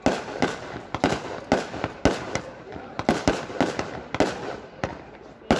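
Fireworks display: a rapid, unbroken run of sharp bangs from shells bursting, about three a second.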